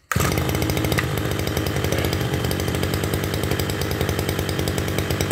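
Ranee 302 (Robin-type) 30cc long-stroke brush cutter engine catching right at the start on one pull of the recoil starter, then idling with a slow, even 'từng từng từng' beat.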